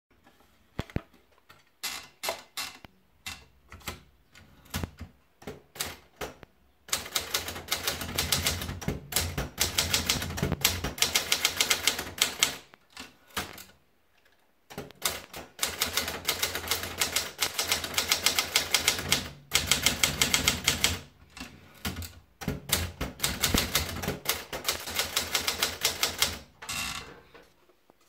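Adler Gabriele 35 manual typewriter: scattered single clicks as a sheet of paper is fed in, then long runs of rapid typing, keys striking in quick succession, broken by short pauses between lines.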